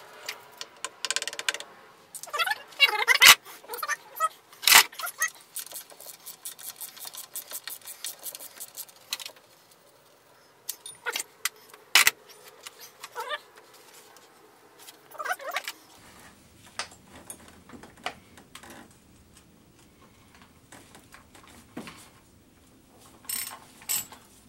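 Small metal parts and hand tools clinking and rattling as they are handled, with sharp metallic knocks loudest about three and five seconds in, then sparser clinks.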